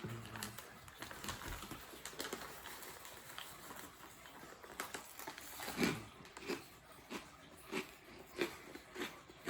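Close-up mouth sounds of eating crunchy fried pork rind crumbs: faint crackling crunches at first, then about halfway through a run of soft, regular chewing sounds, roughly one and a half chews a second.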